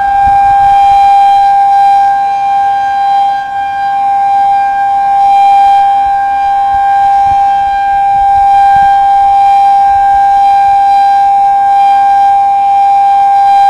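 2001-SRNB tornado siren sounding a steady tone held at one pitch, wavering a little in loudness. There is no regular rise and fall from the horn sweeping around because its rotator is dead and the siren stays pointed one way.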